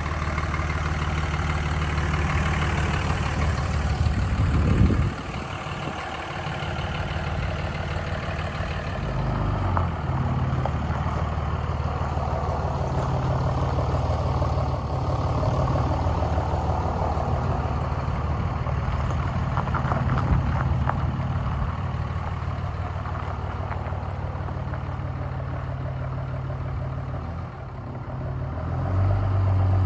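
Third-generation Cummins inline-six turbo-diesel idling steadily, its sound dropping briefly about five seconds in and growing louder near the end.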